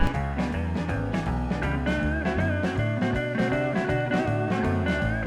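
Background music: electric guitar over a drum kit with a steady beat.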